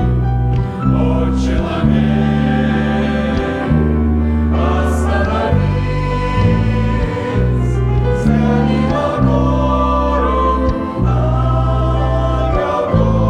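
Choir singing a Christian song with musical accompaniment, sustained bass notes changing every second or so beneath the voices.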